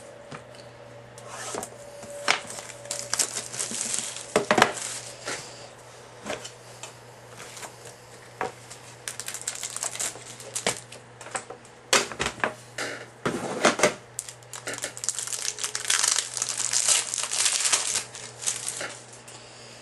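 A box of trading cards being opened and the cards unwrapped and handled: a plastic wrapper rustling in spells, fullest in the last few seconds, with scattered clicks and knocks of the box and cards against the table.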